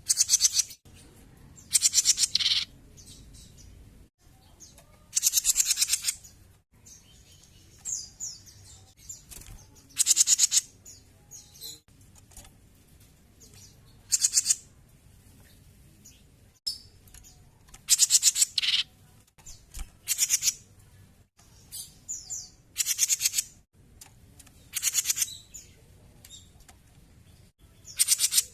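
Cucak jenggot bulbul singing in short, loud, rattling bursts of about half a second each, repeated every two to three seconds.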